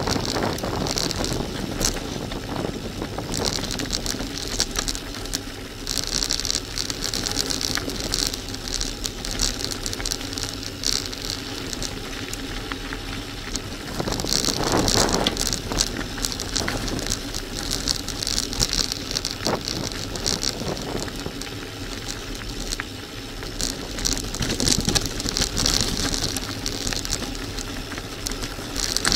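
Bicycle tyres crunching steadily over loose gravel, with the bike rattling over the stones. A high hiss swells and fades in stretches of a few seconds.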